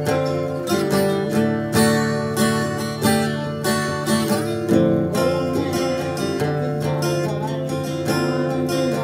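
Acoustic guitar strummed, playing chords in a steady rhythm.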